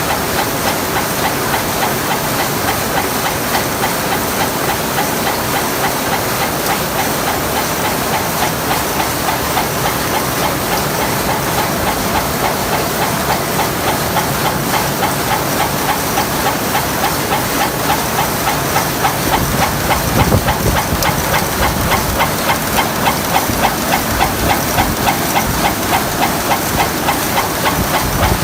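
Screw-making machines in a cold-forging screw plant running continuously, with a fast, regular mechanical clatter over a steady hiss. A deeper rumble joins about two-thirds of the way through.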